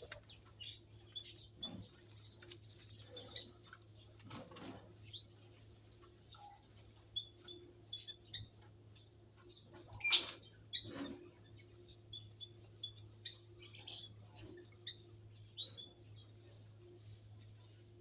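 Small aviary birds chirping: many short, high calls scattered throughout, over a faint steady low hum. One sharper, louder sound comes about ten seconds in.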